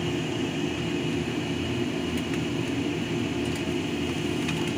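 A steady low mechanical hum, with a few faint light ticks about halfway through and near the end.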